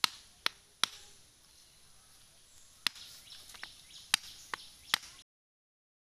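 Knife blade striking bamboo: about eight sharp, separate chops at an uneven pace, then the sound cuts off suddenly a little after five seconds.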